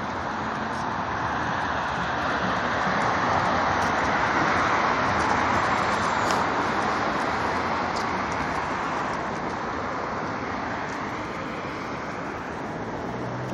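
Road traffic going by: tyre and road noise that swells for a few seconds, then fades again, with no clear engine note.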